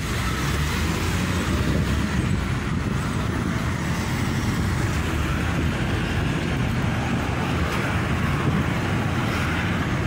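Steady low rumble of a moving road vehicle, engine and tyre noise heard from on board as it drives along a street.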